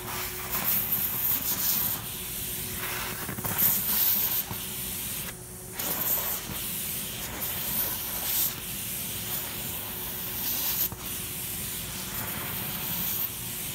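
Vacuum cleaner running with its hose wand drawn over a cat's fur: a steady rushing hiss of suction over a constant motor hum, swelling and fading as the nozzle moves through the fur, and briefly dulled about five and a half seconds in.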